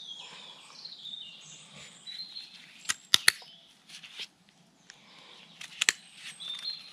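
Bonsai root scissors snipping through roots: three sharp cuts about three seconds in and two more near the end. Small birds sing and chirp in the background.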